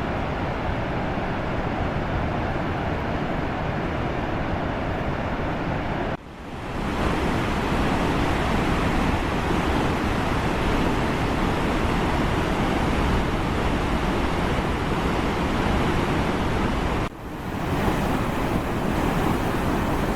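Steady rushing noise, broken by two brief dropouts about six and seventeen seconds in.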